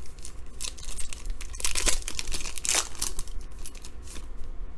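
Foil wrapper of an NBA Hoops trading-card pack being torn open and crinkled, in a run of irregular rips and crackles that are loudest about two seconds in.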